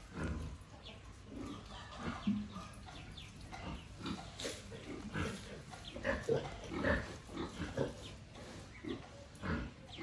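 Pigs grunting: short, irregular grunts coming in quick runs, loudest around six to seven seconds in.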